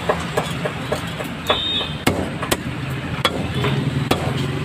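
An engine running steadily under a string of sharp, irregular knocks, about two or three a second, with a brief high-pitched tone about one and a half seconds in.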